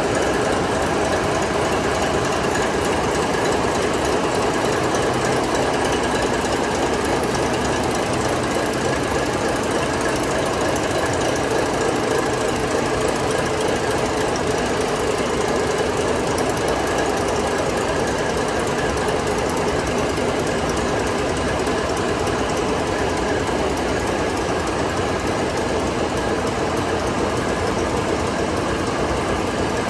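ABC (Anglo Belgian Corporation) marine diesel engine running steadily, a loud, dense mechanical clatter heard up close, holding one even speed throughout.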